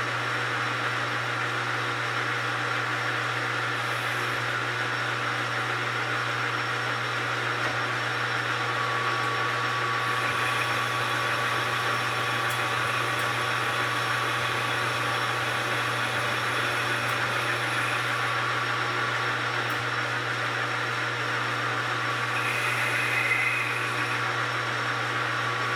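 Metal lathe running steadily, with a low, even motor hum, while taking a light spring cut across a steel plate. A faint steady high tone joins about ten seconds in, and there is a short added sound about three seconds before the end.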